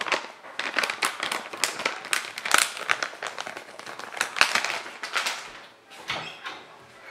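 Plastic bag of mini marshmallows crinkling as it is handled, a dense run of crackles that thins out about five and a half seconds in, with a few more just after.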